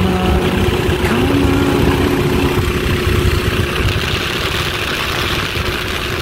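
Cockpit noise of a T-6 Texan in flight: its radial engine and propeller running with a steady drone, under a loud rush of air over the canopy.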